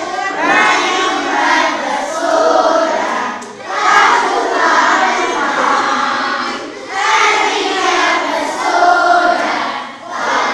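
A large group of children singing a festive song together, in phrases of about three seconds with brief breaks between them.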